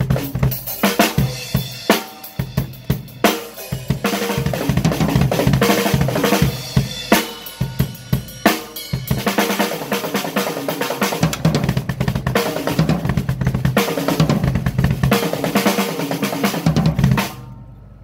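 Drum kit played with busy double bass drum footwork on a Tama Iron Cobra double pedal, the bass drum strokes running under snare and cymbal hits. The playing stops abruptly near the end.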